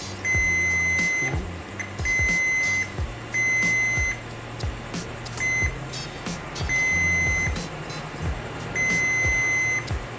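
Digital multimeter's continuity beeper sounding in six separate high beeps, each about half a second to a second long, as the probes are touched across the receiver's amplifier parts. Light probe clicks fall between the beeps. The beep marks a dead short, the fault in the receiver's shorted amplifier channel.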